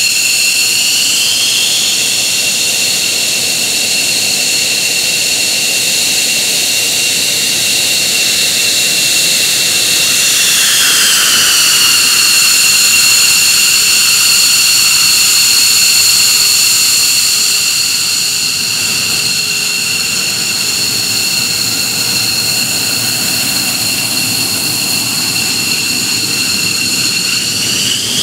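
McDonnell Douglas F-15J's twin Pratt & Whitney F100 turbofans running on the ramp, a loud high whine of several tones under a rushing roar. The whine falls in pitch about ten seconds in and rises again near the end.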